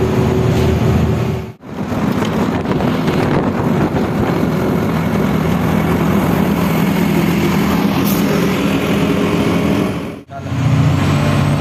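Tata truck's diesel engine running steadily under way, heard from inside the cab as a low drone mixed with road noise. The sound cuts out briefly about a second and a half in and again near the end.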